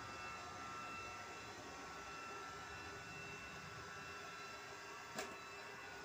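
Robot vacuum cleaner running: a steady hum of its suction fan and drive motors with a thin whine over it. A single sharp knock near the end, as its bumper meets furniture.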